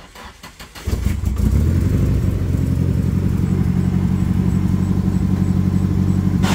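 Nissan SR20DET turbo four-cylinder engine in a 240SX cranking briefly, catching about a second in, then idling steadily.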